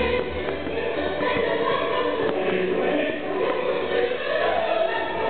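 Choral music: a choir singing long held notes, with the music running on steadily.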